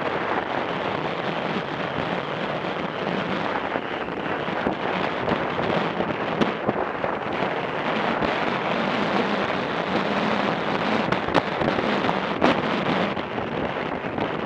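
Wind rushing over the microphone of a camera on a moving motorcycle, with the motorcycle's engine running underneath. A few sharp clicks cut through the noise.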